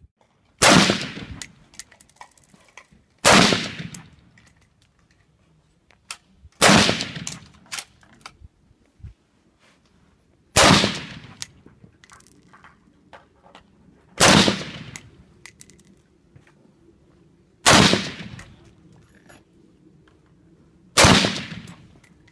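AR-15 semi-automatic rifle fired in slow, aimed single shots: seven loud shots about three and a half seconds apart, each followed by a short echoing tail.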